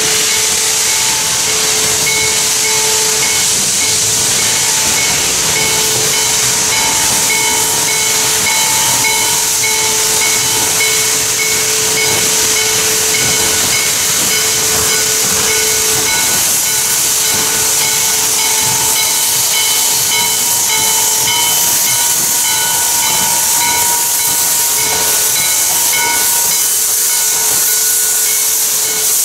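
Chesapeake & Ohio #1309, a 2-6-6-2 Mallet steam locomotive, hissing loudly as steam blows from its open cylinder cocks while it rolls slowly up. A faint ringing tone repeats evenly underneath the hiss.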